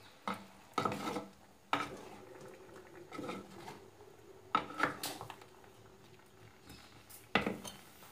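A metal ladle stirring curry in a pot, knocking and scraping against the pot's side in several sharp clinks that ring briefly. The loudest knock comes near the end.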